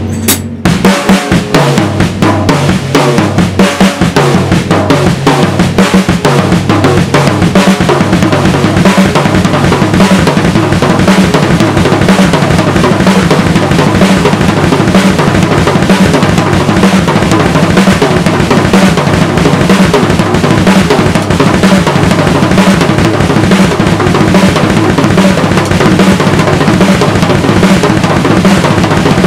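Drum kit played with sticks: a fast, busy, unbroken pattern of snare, tom and bass drum strokes with cymbals, the drums ringing low under the strikes.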